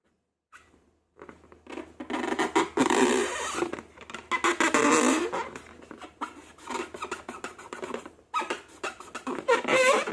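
Slime and long rubber balloons being handled: dense sticky crackling and squishing, with high wavering squeaks near the end.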